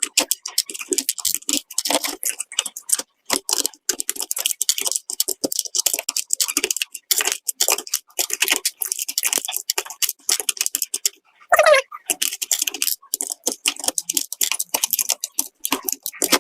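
Plastic keycaps being prised off an A4Tech computer keyboard with a fork: rapid, irregular clicks, snaps and light clatter as the keys pop loose and are set down. One brief squeak comes about two-thirds of the way through.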